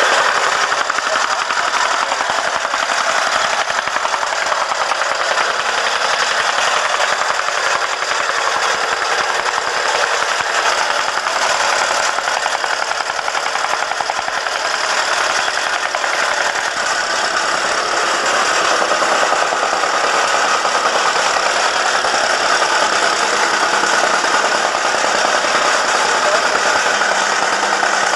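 Petrol vibratory rammer (jumping-jack tamper) running steadily with rapid, even strokes as its foot compacts the soil floor of a foundation pit.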